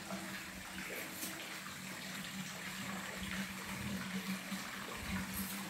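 Steady running water from a small garden fish pond, an even hiss, with a low steady hum underneath.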